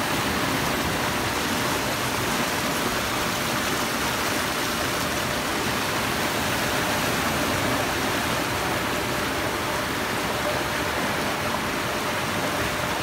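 Fast-moving floodwater rushing and churning in a torrent over a road and past fence posts, a steady, unbroken rush of water.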